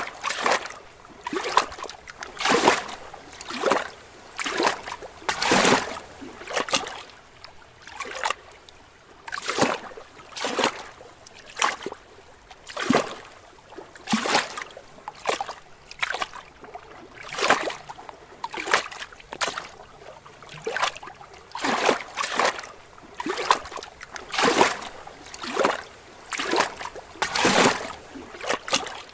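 Small lake waves lapping against rocks: short, irregular splashes about once a second, some louder than others.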